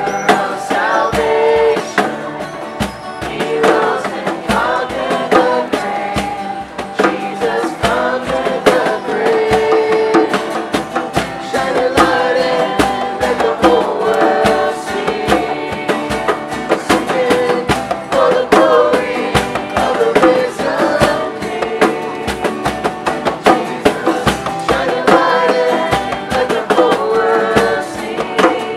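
A group singing a praise song together, accompanied by strummed acoustic guitars with a steady rhythm.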